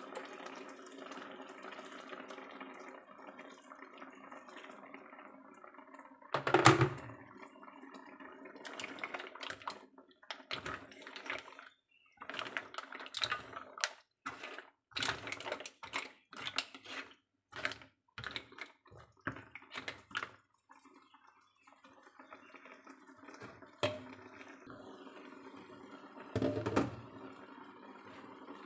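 Mussels simmering in a wok with a little added water, under a steady low hiss. Through the middle comes a run of quick clicks and clatters as the shells are stirred against the pan, with two louder thumps, one about six seconds in and one near the end.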